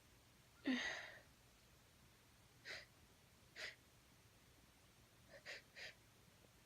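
A woman's gasp with a brief voiced onset less than a second in, then several short sniffs, as a snuff-induced sneeze builds but does not come.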